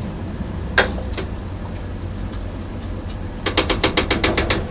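A utensil stirring and knocking against a cooking pot: a couple of sharp knocks about a second in, then a quick run of about ten clicks near the end, over a steady low hum.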